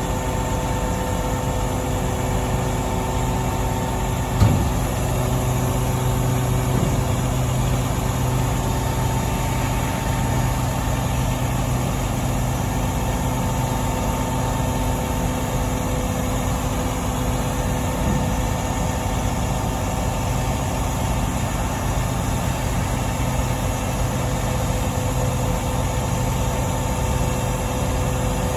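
Volvo FMX 450 dump truck's 13-litre six-cylinder diesel idling steadily while the tipper body lowers. A single short thump stands out about four seconds in.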